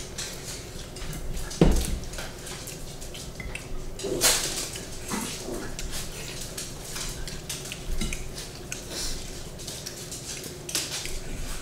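Mealtime sounds at a table: scattered light clinks and scrapes of plates and a bowl as two people eat, with a sharper knock a little under two seconds in.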